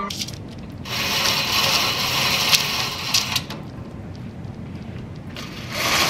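Rustling and handling noise from a camera being moved and set up, in two spells, with two sharp clicks about halfway through.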